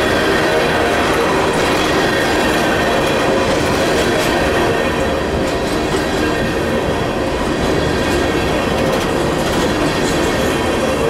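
Empty coal hopper cars of a freight train rolling past close by: a loud, steady rumble of steel wheels on rail, with occasional clicks.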